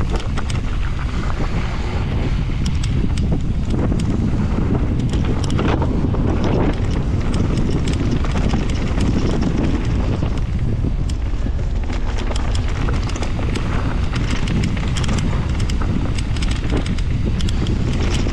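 A mountain bike riding a trail: heavy wind noise on the microphone over a steady low rumble, with frequent sharp clicks and rattles from the bike.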